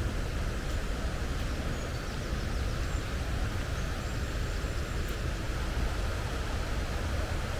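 Steady rushing of water from the canyon's river and waterfall, heavy in the low end, with a few faint high bird chirps over it.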